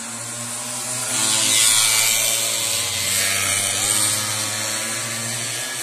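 Two racing motorcycles passing close by at speed, one after the other, on a street circuit. Their engines swell loudest about one and a half seconds in and again about three seconds in, then ease off as they go on down the street.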